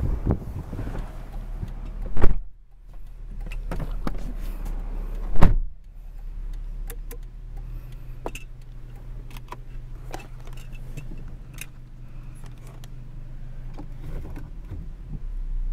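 Two loud thumps about three seconds apart, then the steady low hum of the Toyota Aristo's 2JZ-GTE twin-turbo straight-six idling, heard from inside the cabin, with scattered light clicks.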